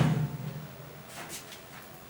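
A low hum fading over the first second after a knock, then a few faint clicks: a bowl of rice being handled into the microwave.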